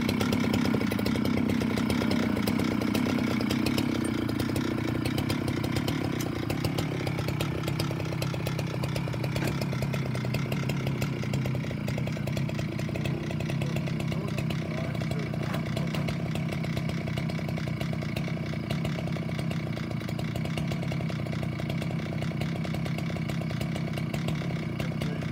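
Big chainsaw on a homemade chainsaw mill with a six-foot bar, running steadily as it cuts through a large stump. Its note drops lower about five seconds in and holds there.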